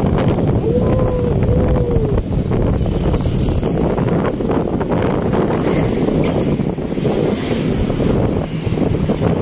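Wind rushing over the microphone of a moving motorcycle, with the motorcycle and road traffic underneath as a steady, loud rush. About a second in, two short tones rise and fall.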